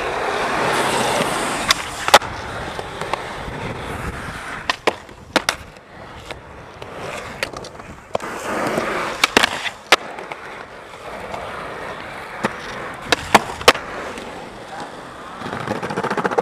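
Skateboard rolling over pavement, its wheels making a steady rumble that swells and fades. Sharp clacks break through it, several of them in pairs.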